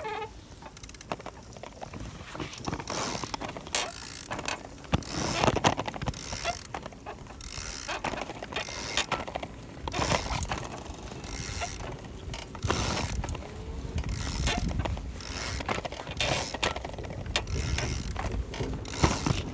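A four-year-old Speedy Versatio squeaking and creaking over and over, about once a second, with each movement, like an old stable door. These are the worn joints of a mobility aid that has gone four years without service.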